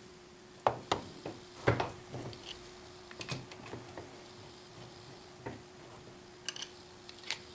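Scattered metal clinks and knocks of parts and tools being handled on a milling machine saddle during reassembly, the sharpest in the first two seconds and another pair near the end, over a faint steady hum.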